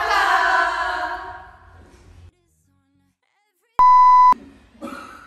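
TV test-card tone: a single steady high-pitched beep lasting about half a second, the loudest sound here, following a stretch of dead silence. Before it, several young women's voices call out together and fade away about two seconds in.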